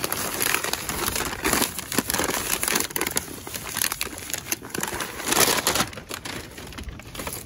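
White wrapping paper crinkling and rustling in irregular bursts as it is pulled open by hand to unwrap a potted cactus, loudest about five and a half seconds in.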